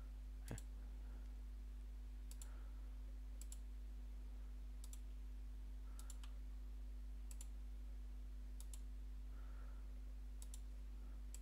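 Computer mouse button clicks, about eight single clicks spaced a second or so apart, made while selecting nodes one by one on screen. A steady low hum runs underneath.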